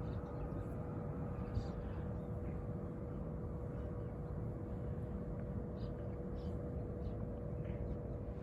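Steady outdoor background rumble with a faint steady hum and a few brief faint high chirps.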